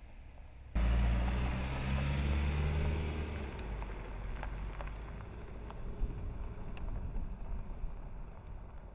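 Jeep Cherokee Trailhawk's engine pulling under throttle, starting abruptly about a second in, its pitch rising slightly. After a few seconds it gives way to a fading haze of tyres on a gravel dirt road, with small clicks of stones.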